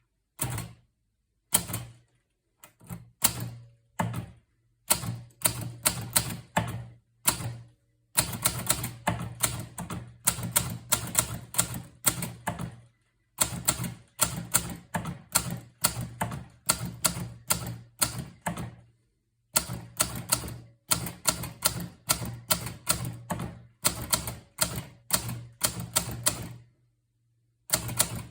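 Hermes 3000 portable manual typewriter being typed on: runs of quick key strikes, several a second, broken by short pauses.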